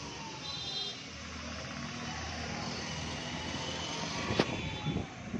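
A vehicle engine runs steadily, with one sharp click about four and a half seconds in.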